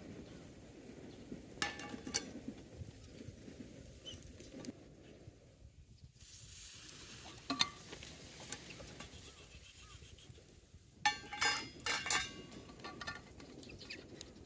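Metal camp cookware and utensils being handled: a few separate clinks and knocks, then a quick cluster of clinks near the end, over a low steady background.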